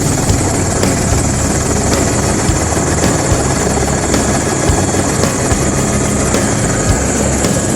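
Helicopter in flight, heard from inside the cabin: loud, steady rotor and engine noise with a faint high whine.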